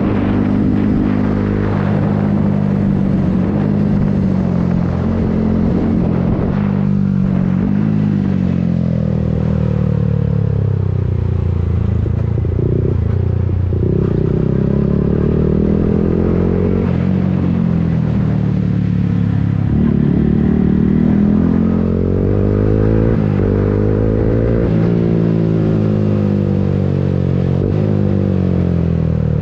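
Yamaha MT-15's single-cylinder four-stroke engine through an Akrapovic full-system exhaust, heard from on board while riding. The engine pitch climbs under acceleration and drops at each gear change, over and over through the corners, with wind rushing past.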